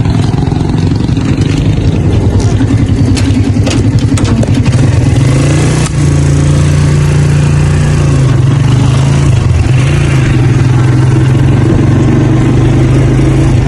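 Motor vehicle ridden in, its engine running with a loud, steady low hum; a brief drop about six seconds in, after which the hum holds a steadier pitch.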